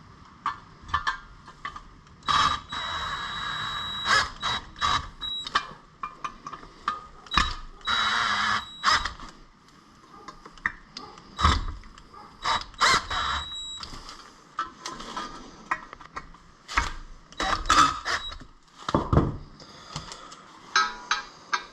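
Hand-tool work on the air intake's metal parts as screws are driven in and tightened: irregular clicks, clinks and short scrapes, with a couple of longer stretches of ratcheting or scraping.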